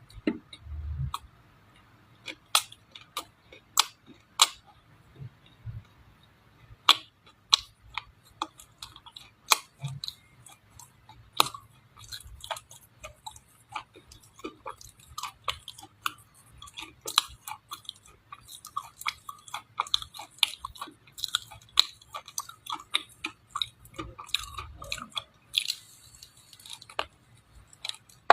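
Close-miked chewing of dry clay: irregular sharp crunches and crackles as pieces break between the teeth.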